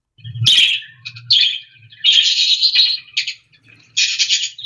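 Nightingale singing its warble: bursts of rapid, varied high-pitched phrases with short breaks between them.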